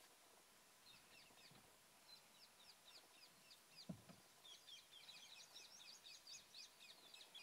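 Faint bird chirping in rapid series of short notes, thickening into a busier run in the second half. A single brief low thump just before the middle.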